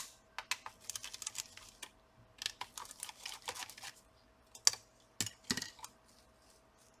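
Small irregular clicks and taps of a screwdriver on the screws and of the metal heatsink and fan being handled as a laptop's cooler is unscrewed and lifted out. The clicks come in loose clusters, with a few sharper knocks near the end.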